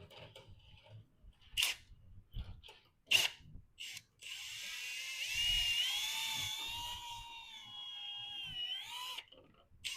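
A few sharp metal clicks and knocks, then a drill runs for about five seconds, its whine wavering in pitch, spinning a valve against its seat to lap it in for a tight seal in the 5.3 V8's cylinder head.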